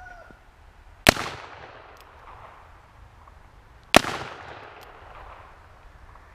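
.44-calibre Remington New Model Army cap-and-ball revolver, loaded with 30 grains of Pyrodex, fired twice about three seconds apart. Each shot is a sharp report that trails off in a short echo.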